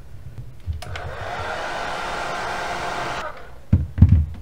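A handheld hair dryer runs steadily for about two and a half seconds, starting and stopping abruptly, blowing hot air on a phone to soften the adhesive under its back glass. Two loud thumps follow near the end.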